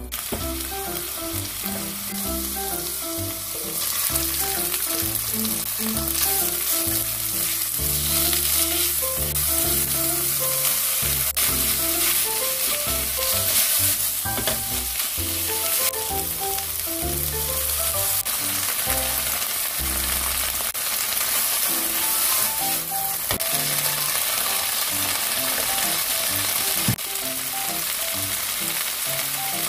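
Oil sizzling in a nonstick wok as minced garlic and then seaweed stems with onion and carrot are stir-fried and stirred with a spatula. A steady hiss runs throughout, over soft background music.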